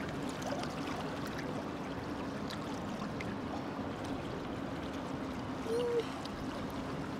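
Steady rush of river water flowing, with a few faint splashes from a salmon being handled in a landing net in the shallows.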